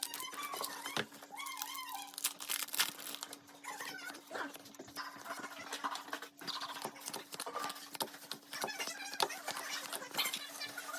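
Pokémon card packs and cards being handled: irregular crinkling, rustling and clicking of foil wrappers and card stock, with scattered faint high squeaks.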